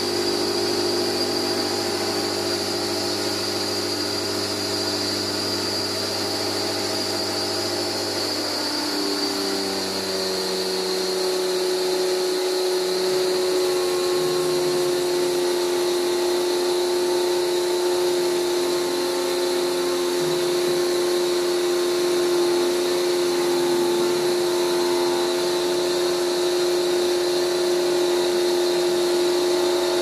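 Portable electric pressure washer running steadily, its pump drawing water from a bucket to spray an air-conditioner coil. About nine seconds in its pitch steps up slightly and a low hum fades out, and the sound gets a little louder.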